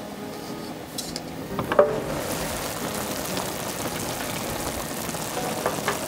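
The lid of an electric grill pan knocks as it is lifted just before two seconds in, then ramen broth boils with a steady bubbling hiss.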